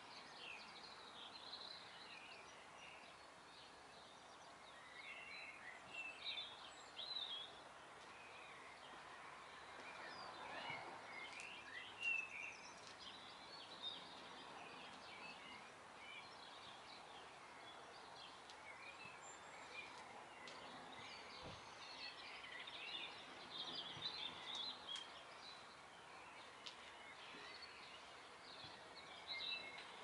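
Faint garden birdsong: scattered short chirps and twitters from small birds over a steady outdoor hiss, a little busier in a few spells.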